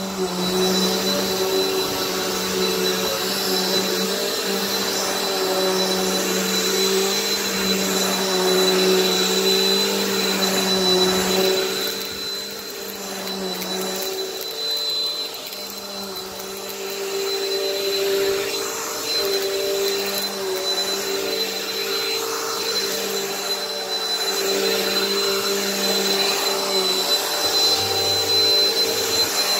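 Bissell PowerForce bagged upright vacuum cleaner running steadily, its motor holding a high whine. It goes a little quieter for a few seconds around the middle, then comes back up.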